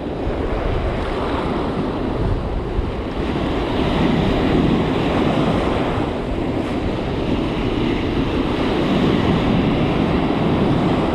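Ocean surf breaking and washing through the shallows at the waterline, a steady rushing wash, with wind buffeting the microphone.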